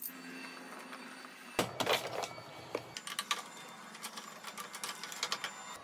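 Irregular clicks and knocks of a hand tool working a fastener in a plywood hinge on an aluminium CNC frame, with a loud cluster of knocks about a second and a half in and quicker clicking from about three seconds on. A steady low hum runs behind.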